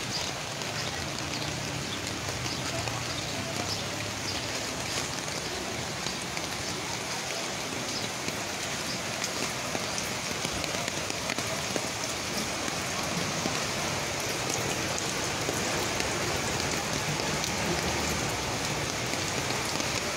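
Steady rain falling, with many small drop ticks on nearby surfaces.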